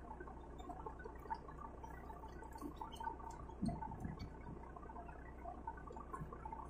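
Water dripping and trickling from a freshly hauled shrimp trawl net's cod end full of wet catch, with scattered small drips and squelches, over a steady low hum. A dull thump comes a little past halfway.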